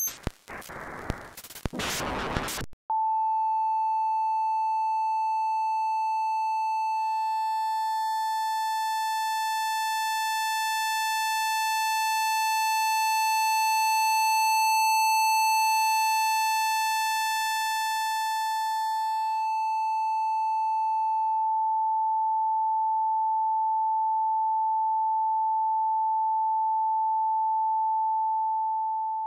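Electronic sound from live electronics in a contemporary music piece: a rush of noise and static cuts off about three seconds in, and a steady pure sine tone starts and holds. Several higher pure tones enter over the next few seconds, forming a chord, and drop out again around twenty seconds in, leaving the single tone sustained.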